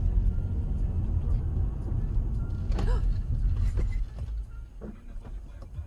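Dashcam car-cabin audio: steady low road and engine rumble while driving, with a brief voice-like cry near the middle. About four seconds in come a few faint knocks as two cars collide ahead, and the rumble drops.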